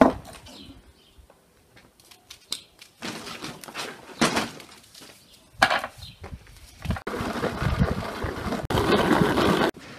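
Food-preparation sounds: scattered clinks and knocks of kitchen utensils, then a steady whirring noise that starts about seven seconds in, runs for about three seconds and cuts off suddenly, like a kitchen appliance being switched on and off.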